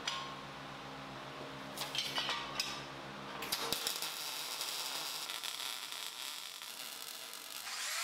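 Lincoln Electric Power MIG 210 MP welder running a MIG weld on a 1x2 steel stretcher tube, a steady crackling hiss starting about three and a half seconds in. Before it come a few light metal clinks as the tube is set in place.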